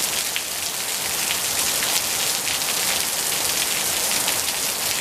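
Steady rain falling: an even hiss with many single drops ticking through it.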